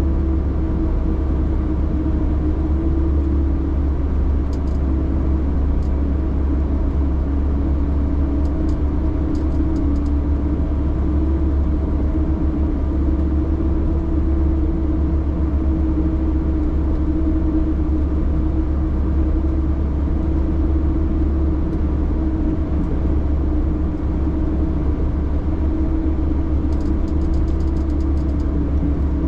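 Car driving along a snow-packed road, heard from inside the cabin: the engine drones steadily over a deep, even rumble of tyres and road, with its pitch wavering slightly.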